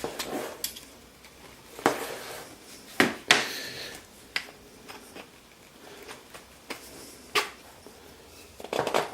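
Scattered clicks and knocks of small Baltic birch parts and a bolt being handled and fitted together.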